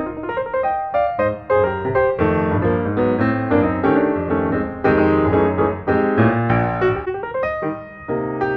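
Background piano music, a continuous run of struck notes.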